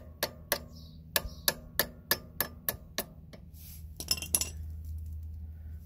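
Metal pliers tapping on a motorcycle footpeg mount's pin to seat it, about three sharp taps a second. The tapping stops about three seconds in, and a brief clatter of metal follows about a second later.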